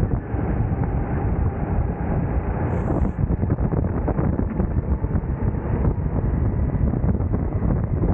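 Go-kart engine running at racing speed, heavily buffeted by wind rumble on the kart-mounted camera's microphone. The sound is steady and unbroken, with a brief high hiss about three seconds in.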